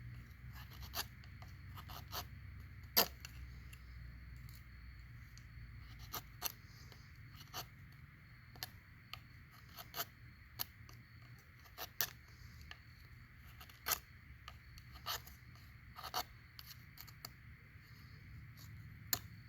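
A knife blade scraping thin shavings off a hard, resinous chunk of fatwood: a string of short, irregular scrapes and clicks, roughly one or two a second.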